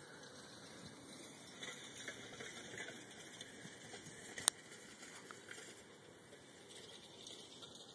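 Faint open-air background with light scattered crackling and one sharp click about halfway through.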